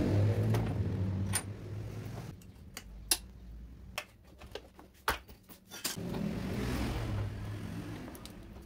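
Sharp metallic clicks and rattles of hoses, clamps and parts being worked loose as the carburettor is removed from a Yamaha Mio Sporty scooter. Under them is a low engine hum in the background, there for the first two seconds, gone for a while, then back from about six seconds in.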